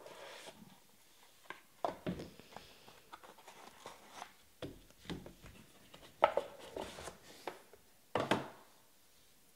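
Hands opening a cardboard trading-card box and handling football cards in hard plastic holders: scattered rustles, light clicks and taps, the sharpest about six seconds in and again near the end.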